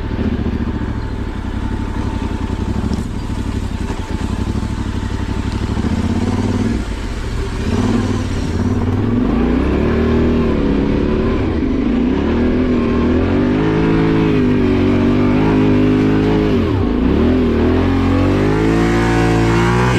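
Yamaha Ténéré 700's parallel-twin engine working hard off-road in second gear: a steadier note for the first several seconds, then revving up and down repeatedly as the bike struggles through difficult ground.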